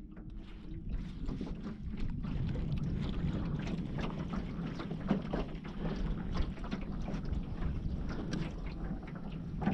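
Wind buffeting the microphone and water splashing and slapping against the hull of a small boat moving across open water.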